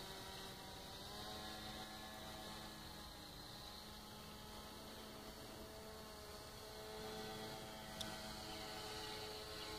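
RC paracopter's motor and propeller droning faintly overhead, a steady hum of several pitched lines that shifts slightly in pitch about a second in. A brief click near the end.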